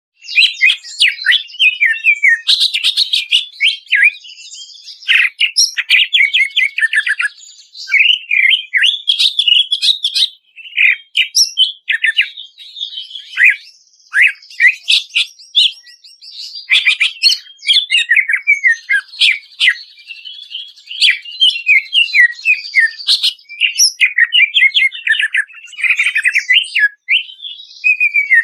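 Green leafbird (cucak ijo) singing loudly and without pause: fast runs of varied whistled notes, trills and sharp down-slurred calls, in phrases broken by brief gaps.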